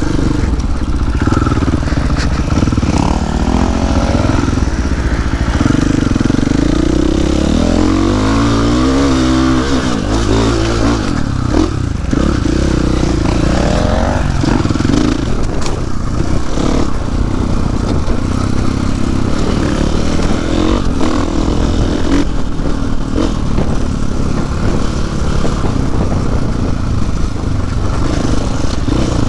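KTM 500 EXC-F single-cylinder four-stroke dirt bike engine running under the rider, revving up and down through the gears on a trail ride. It rises in pitch through one long pull a few seconds in, with wind and trail noise across the microphone.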